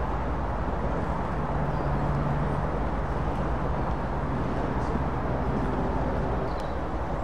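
British Rail Class 08 diesel-electric shunter's English Electric six-cylinder diesel engine idling: a steady low drone.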